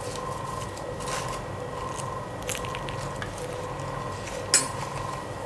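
Banana leaf rustling and crinkling as a leaf-wrapped fish parcel is pulled tight and tied with fibre string, with a sharp click about four and a half seconds in. A faint steady hum runs underneath.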